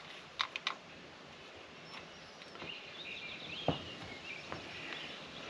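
Quiet handling of small engine parts and tools: two sharp clicks about half a second in and a single knock near four seconds, with birds chirping faintly in the background.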